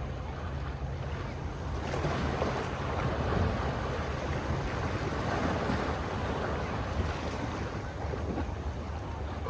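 Ocean waves washing in, the surf swelling about two seconds in and easing off near the end, with wind on the microphone and a low steady hum underneath.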